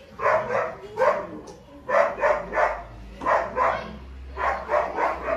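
A dog barking repeatedly, short barks in twos and threes, about two a second.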